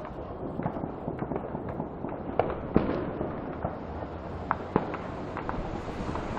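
New Year's fireworks and firecrackers going off across a city, a continuous scatter of irregular pops and cracks over a steady rumble, with a few sharper, louder bangs in the middle.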